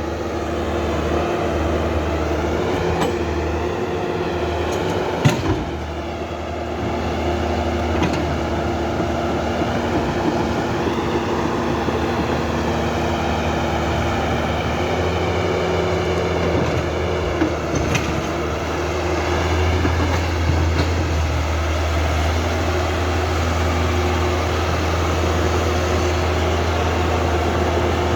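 Huina RC excavator's motors whining steadily, the pitch wavering up and down as it works, with a sharp click about five seconds in and another near eighteen seconds.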